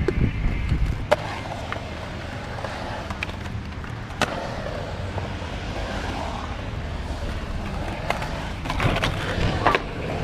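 Skateboard wheels rolling over a concrete bowl, a steady rumble, with a few sharp clacks of the board about one and four seconds in. Near the end the rolling gets louder as a skater passes close by.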